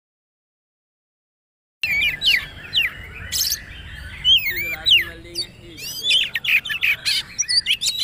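Oriental magpie-robin (kacer) singing a fast, varied song of whistled slurs and sharp clicking notes. The song starts about two seconds in.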